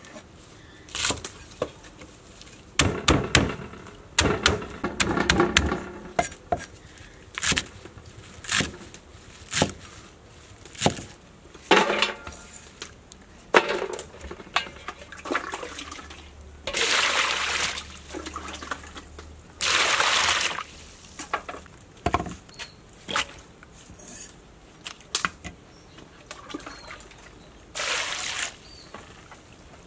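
Water spinach stalks being cut into short lengths on a wooden chopping block, a quick irregular run of crisp cracks and knocks through the first half. In the second half, water is poured over the cut greens in a metal pot in a few short splashing bursts.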